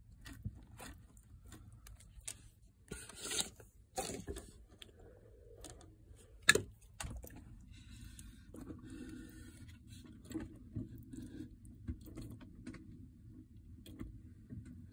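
Scattered light scrapes and clicks as an African bullfrog shifts and feeds in granular substrate, with one sharp click about six and a half seconds in.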